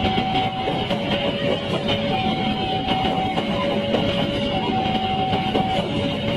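Argo Dwipangga passenger train's carriages rolling past, a steady rumble of wheels on the rails. Over it a level-crossing warning alarm sounds a two-tone signal, a higher and a lower note taking turns about every second.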